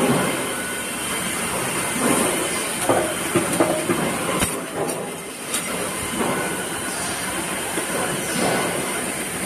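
Continuous workshop machinery noise: a steady hiss with a high, thin whine running under it. A few sharp clicks come about halfway through as small steel discs are handled at the machine.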